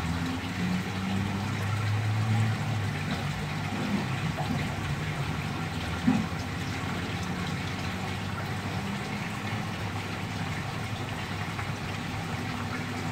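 Steady running water from the circulation pipe of a mud crab fattening tub, over a low hum that wavers in pitch. A single sharp knock about six seconds in.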